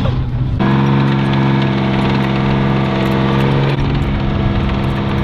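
A tracked tank's engine runs at a steady pitch as the tank drives, with faint clicking over it. The drone comes in more strongly about half a second in.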